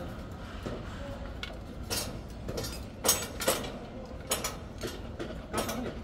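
Irregular sharp metal clanks and clinks of construction work on steel scaffolding and formwork, about six knocks a second or so apart, over a steady low hum of site noise.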